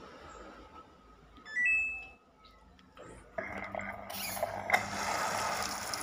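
Samsung top-loading washing machine's control panel gives one short beep that steps up in pitch. About three and a half seconds in, the water inlet opens and water starts gushing into the drum through the detergent drawer, then runs steadily.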